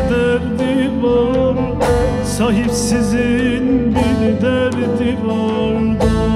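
Bağlama (saz) strummed and plucked in a Turkish folk tune, its drone strings sounding steadily under a melody line with wavering vibrato.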